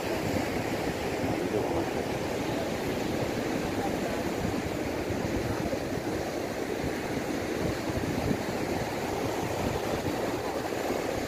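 Sea surf breaking and washing against a rock breakwater, a steady rushing noise with no let-up.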